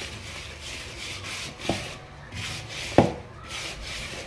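Hand rubbing oil into dry flour in a plastic bowl: a rhythmic rustling scrape, about two strokes a second. Two dull knocks, a little before two seconds in and a louder one about three seconds in.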